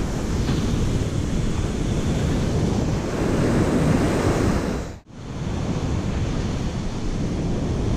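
Ocean surf breaking and washing around the shallows, with wind buffeting the microphone. A wave breaks louder a few seconds in, then the sound cuts out for an instant about five seconds in and the surf and wind come straight back.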